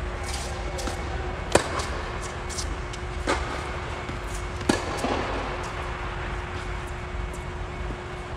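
Tennis ball being struck by racquets and bouncing in a rally on an indoor court: sharp pops about a second and a half apart, the loudest a little over a second and a half in. A steady low hum runs underneath.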